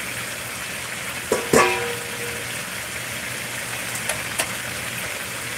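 Chicken pieces sizzling in oil and sauce in a nonstick wok. About a second and a half in, a spatula knocks sharply against the pan twice and the pan rings briefly. Two lighter clicks follow about four seconds in.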